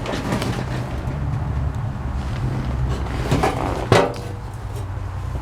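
Metal knocks and clatter from the seized controls of an old abandoned bulldozer being worked by hand, with a sharp clank about four seconds in that rings briefly, over a low steady rumble. The controls don't move: they are stuck.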